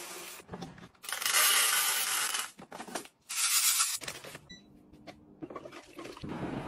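Dried mung beans and then red beans poured from plastic bags into a clear plastic grain dispenser, a loud rattle of hard little beans hitting plastic twice, the first pour longer than the second.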